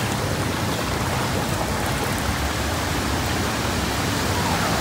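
Rain falling steadily on floodwater covering a street, an even hiss of drops on standing water.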